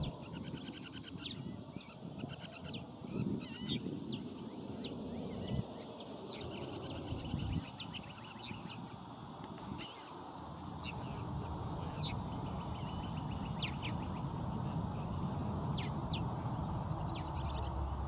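Assorted wild birds calling: many short, high chirps and peeps scattered throughout, over a steady low rumble that grows louder in the second half.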